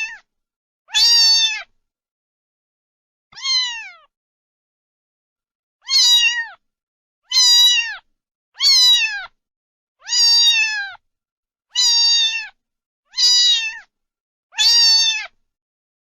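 A cat meowing over and over: about nine loud meows, each a pitched call that drops in pitch at its end, spaced a second or two apart with silence between them.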